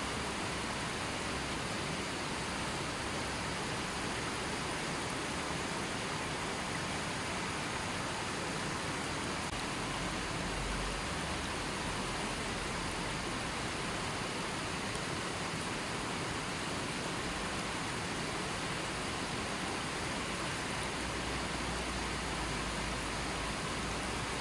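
River water flowing over rocks and stones: a steady, even rushing with no changes.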